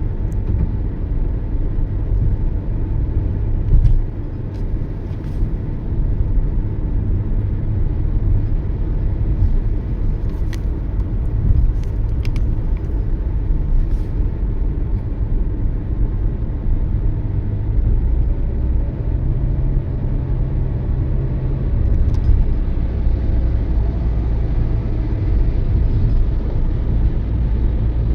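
Steady low rumble of a moving Toyota Yaris, engine and tyre noise heard inside the car, with a few faint scattered clicks and a brief thump about four seconds in.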